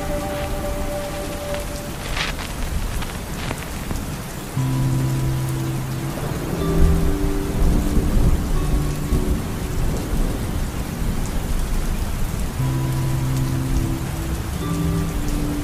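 Rain falling on a moving car's windshield and roof, heard from inside the cabin, over a steady low rumble. Quiet music with long held notes comes and goes underneath.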